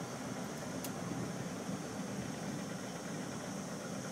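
Steady low hum and rumble of a cable car in motion, heard from inside the cabin on its way down.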